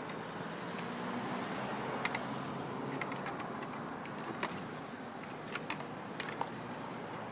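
Bull elk sparring, their antlers clacking in scattered sharp knocks a few times over several seconds, over the steady rush of passing road traffic.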